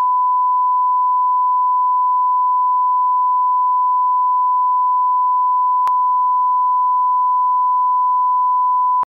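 Steady 1 kHz line-up reference tone, the test tone that runs with colour bars at the head of a broadcast tape. It holds one unchanging pitch and level, has a faint click about six seconds in, and cuts off abruptly near the end.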